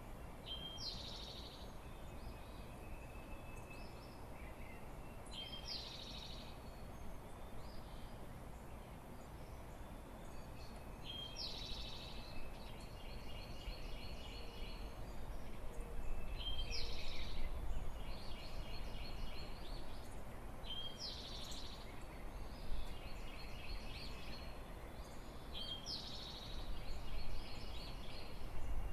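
A songbird singing the same short song six times, about every five seconds; each song is a sharp high note followed by a trill. A steady low rumble runs underneath and swells briefly twice.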